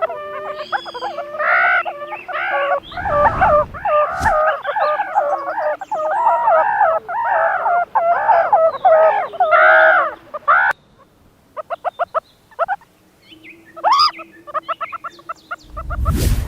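Meerkats calling: a fast, steady series of harsh, arching calls, about two a second, for roughly ten seconds. After that come quick runs of short, clipped chirps. Low thumps sound a few seconds in and again near the end.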